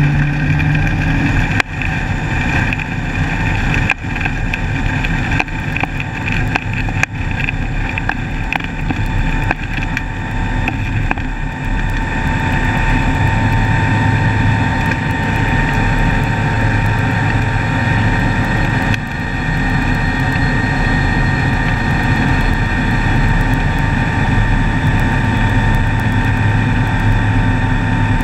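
Rainbow Skyreach Bush Cat light sport aircraft's engine and propeller at full throttle, heard from inside the open cockpit through the takeoff roll and climb-out. There are a few sharp knocks from the grass strip during the first several seconds, and the engine runs smoother once the aircraft is airborne.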